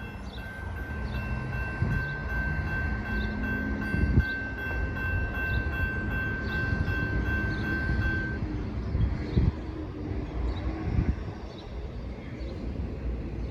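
Railroad crossing warning bell ringing steadily as a train approaches the crossing, over a low rumble; the bell stops about two-thirds of the way through.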